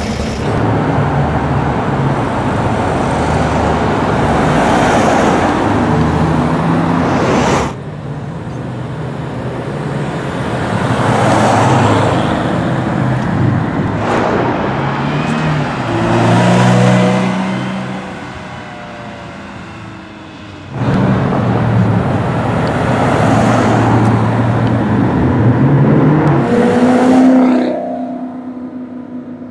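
Sports-car exhausts as cars drive away one after another, engines swelling and fading as each accelerates past. The sound changes abruptly about a third of the way in and again about two-thirds of the way in.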